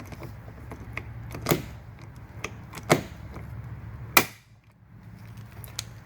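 Three pop rivets being set one after another with a hand rivet tool, each ending in a sharp snap as the mandrel breaks off, with lighter clicks from the tool being squeezed in between. The rivets fasten a composite side rocker panel to the car's existing rocker.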